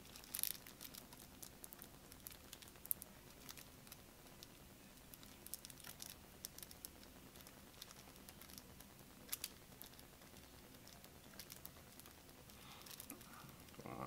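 Faint, scattered crinkles and small clicks of a cardboard trading-card deck box and the cards being handled and opened.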